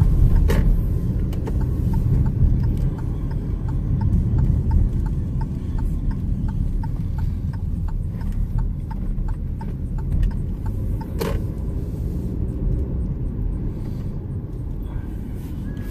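Steady low rumble of a car driving, heard inside the cabin. A regular ticking, about two a second, runs from about two seconds in until about eleven seconds in, followed by a single sharper click.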